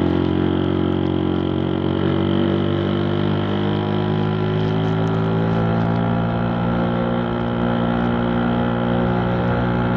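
Vespa PTS scooter's two-stroke single-cylinder engine running steadily while the scooter is ridden. Its pitch rises slightly at first and then holds nearly level.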